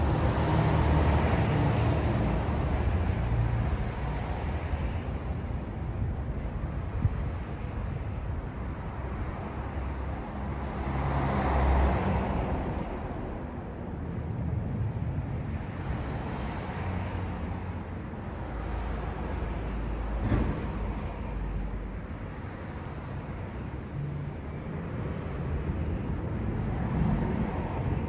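Outdoor background noise: a low rumble with a hiss above it that swells and fades several times, with no birdsong standing out.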